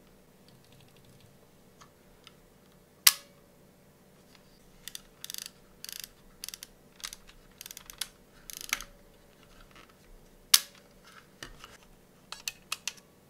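Plastic shutter and cocking mechanism of a Micona MF-165 35 mm film camera being worked by hand. Two sharp snapping clicks, about seven seconds apart, each with a short ring, with bursts of small clicking and ratcheting between them and near the end.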